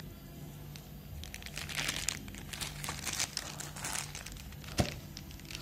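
Thin plastic packaging crinkling as the trimmer's charger, still in its clear bag, is handled, with one sharp knock about five seconds in.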